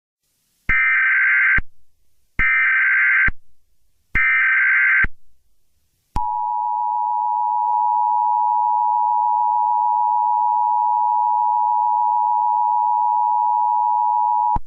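Emergency Alert System tones. Three bursts of about a second each of the SAME header's warbling digital data tones, about a second apart, carry the coded alert. Then the two-tone attention signal sounds steadily for about eight seconds and stops near the end.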